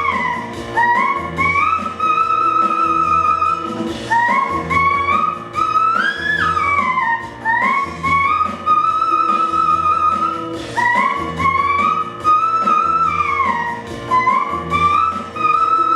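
Music: a sustained, smoothly gliding lead melody over a steady, rhythmic bass line, with no clear words.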